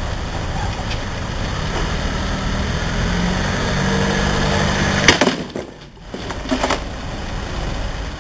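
Minivan engine running at low speed, rising slightly, then a loud bang about five seconds in as the front wheel drops onto the concrete ditch and its loose slab, followed by a couple of further knocks about a second and a half later.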